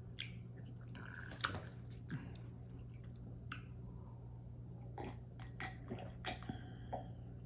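Chewing and wet mouth smacks while eating fish with soup: a scatter of short irregular clicks over a low steady hum.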